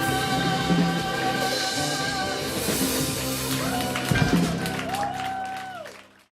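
The closing bars of a song: instrumental accompaniment with a singing voice, dying away and cutting to silence just before the end.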